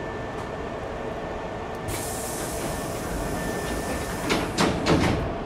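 Hankyu 5300-series commuter train standing at the platform: a hiss of air starts about two seconds in, then three sharp thuds come close together near the end, typical of the train's pneumatic sliding doors closing before departure.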